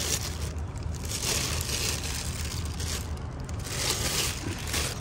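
Thin white plastic carrier bag crinkling in several bursts as a hand grips and handles it.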